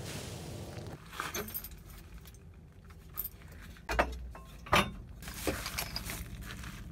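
Sharp metallic clinks and jangles, a handful of separate strikes spread over several seconds, the loudest a few seconds in. Before them is a steady rush of wind-like noise that drops away about a second in.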